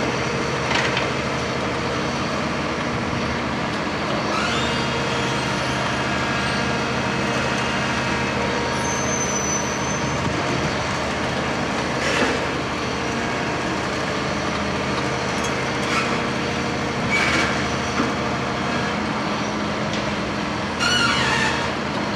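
Heavy diesel construction machinery running steadily, with several short hisses and a squealing tone over the engine drone.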